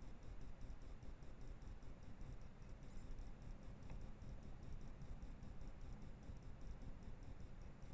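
Faint, even high-pitched ticking at about four ticks a second, the self-noise of a trail camera's electronics, over a steady low rumble.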